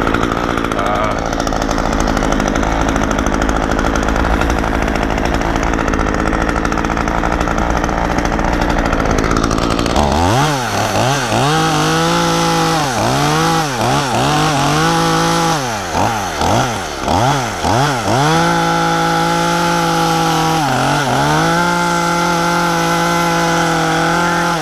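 Two-stroke chainsaw running, first at a low steady speed, then from about ten seconds in revved hard, its pitch dropping and climbing again many times before holding at full speed near the end.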